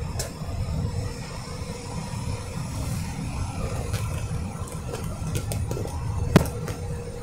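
Steady cabin rumble of a car's engine and tyres at highway speed, with a single sharp click a little over six seconds in.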